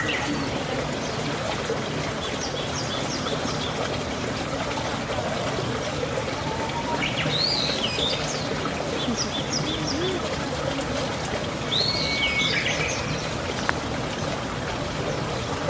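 Birds chirping in several short runs of quick high notes over a steady trickle of running water.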